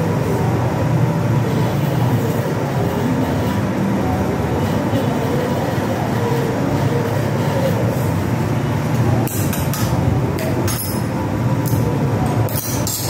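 Steady low mechanical rumble, with a few light clicks and taps in the last few seconds.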